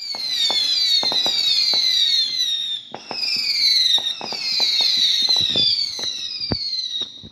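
Fireworks going off: many overlapping whistles falling in pitch, with scattered sharp pops and crackles and one deeper bang near the end.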